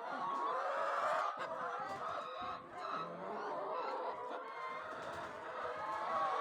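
A flock of chickens clucking, many birds calling over one another continuously.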